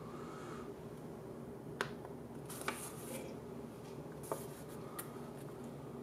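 Quiet room tone with a steady low hum, broken by a few soft clicks and brief rustles of a paper instruction manual being handled.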